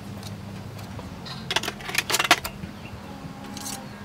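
Hard objects clinking and knocking together in a few sharp clicks, most of them in a quick cluster about one and a half to two and a half seconds in.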